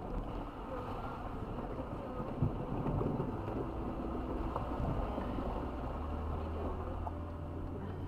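Four-wheel drive moving slowly over a rocky dirt track: tyres crunching on gravel and stones over a low engine hum that strengthens near the end, heard from inside the cabin.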